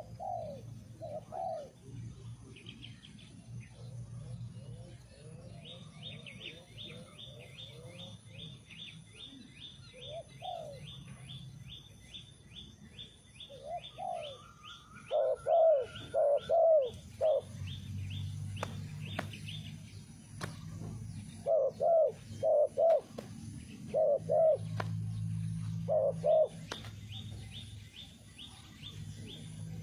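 Spotted doves cooing in short phrases of low, rounded coos, loudest and most frequent in the second half. A fast, high chirping runs through the middle and starts again near the end.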